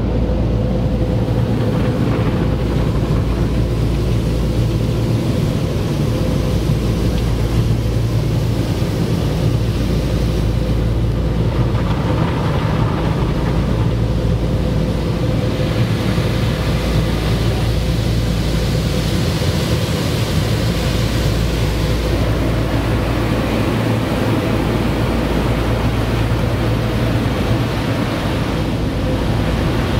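Automatic car wash heard from inside the car's cabin: water spraying and sheeting over the windshield and body, muffled by the glass, over a steady low machine hum.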